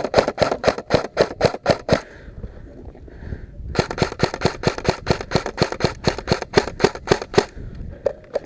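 Airsoft electric rifle firing on full auto: a rapid, even string of shots that stops about two seconds in, then a second, longer burst of about four seconds after a short pause.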